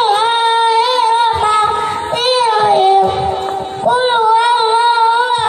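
A young boy singing, holding long drawn-out notes with a slight waver. The voice drops to a lower note about halfway through, then climbs back up.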